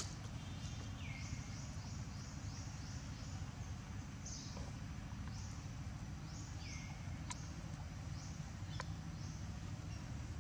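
Outdoor ambience: runs of short, high chirps, each falling in pitch, repeating about three times a second, over a steady low rumble, with a couple of sharp clicks near the end.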